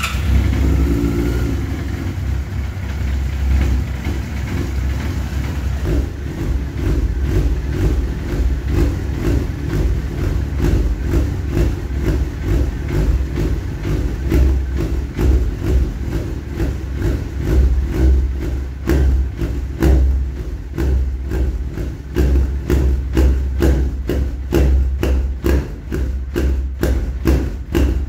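Suzuki GSX-R1000's four-cylinder engine running at idle just after starting, its first start in about seven or eight months, on freshly changed oil. The level swells and dips throughout.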